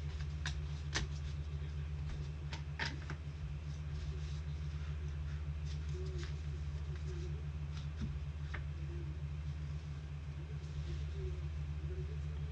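Trading cards being handled, with a few light clicks and rustles, over a steady low hum.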